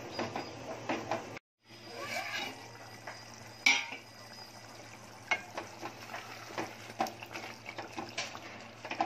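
A spoon stirring cashews in a pot of frying masala, clinking and scraping against the pot in quick, uneven knocks, with a soft sizzle and a low steady hum underneath. There is a brief break about one and a half seconds in and one louder clank near four seconds.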